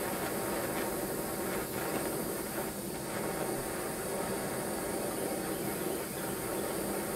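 Gas torch flame hissing steadily while heating a hardened steel punch to temper it to a blue.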